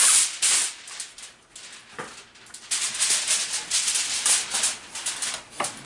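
Aluminium foil crinkling as a sheet is pulled from its box and spread over a disposable foil baking pan: short bursts at first, a sharp click about two seconds in, then a longer stretch of dense crackling.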